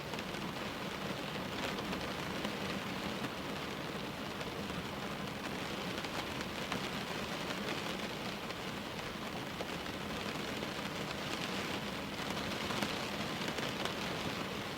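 Steady rain falling: an even hiss with occasional louder drops.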